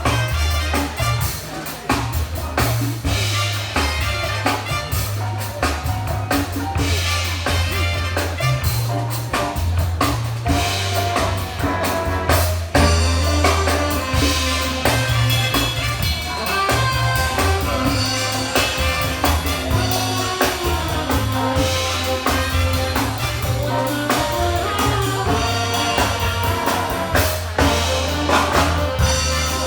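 Big band jazz playing, with drum kit, a walking run of bass notes and ensemble melody lines over them.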